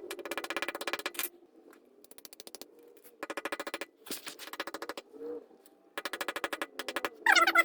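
Fast, light hammer taps on a bent metal bass tuner part, beating it straight, in runs of about a second with short pauses between. A louder, brief sound near the end.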